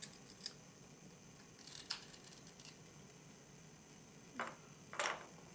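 Knife blade scraping the base of a dental model, scoring relocation grooves: a cluster of light scratches about two seconds in, then two short, louder scrapes near the end.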